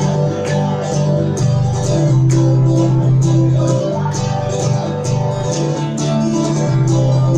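Instrumental break in a country song: guitar strummed in a steady rhythm over held bass notes.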